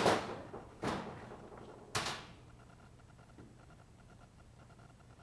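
Three sharp knocks about a second apart, the first the loudest, each ringing briefly: hand tools set down and moved on a metal-topped workbench.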